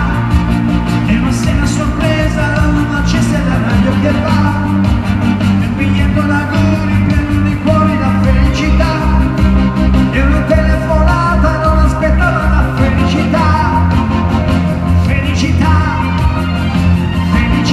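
A man singing a pop song into a microphone over amplified backing music with a steady bass line and beat.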